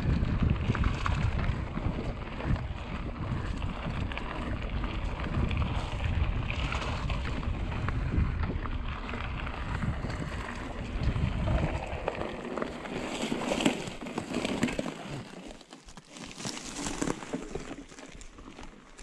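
Trek Remedy mountain bike riding down a dirt trail, its tyres rolling and rattling over the ground, with wind buffeting the GoPro's microphone. About three-quarters of the way through the wind rumble drops away, leaving quieter ticking and rattling.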